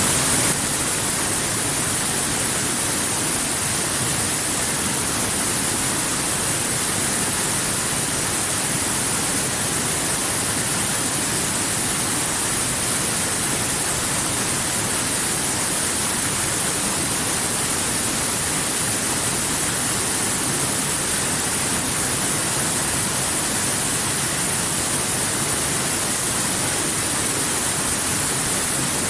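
Waterfall: a steady, unbroken rush of falling water, with a strong hiss in the highs.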